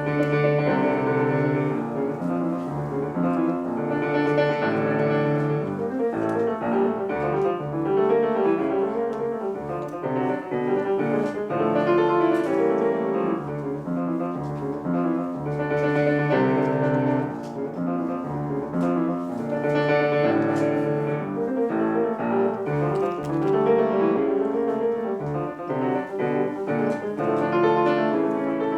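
Solo acoustic piano played fast and continuously, a dense stream of notes that swells and eases every few seconds.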